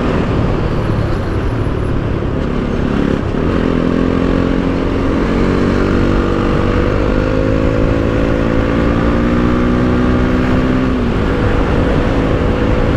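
Bajaj Pulsar NS200's single-cylinder engine running while riding, its pitch climbing slowly through the middle and then holding steady, over a steady rushing noise.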